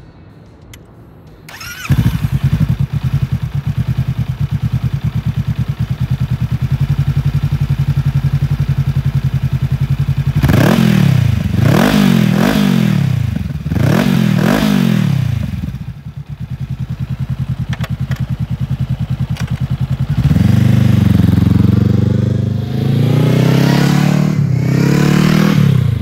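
Honda CB500X's 471 cc parallel-twin engine breathing through an aftermarket Scorpion slip-on exhaust: started about two seconds in, it idles steadily, is blipped through several quick revs, settles back to idle, then pulls away under acceleration, its pitch rising with one dip at a gear change.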